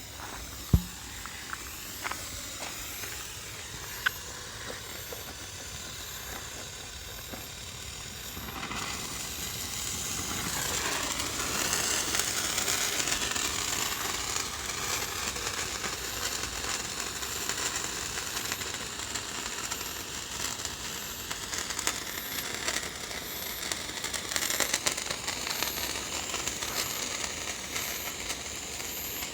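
Handheld fireworks spraying sparks with a steady hiss that swells about nine seconds in, with crackling near the end. A sharp click about a second in.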